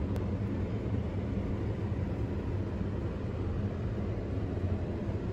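Steady low hum and rumble of background noise, unchanging throughout, with a faint steady tone under it.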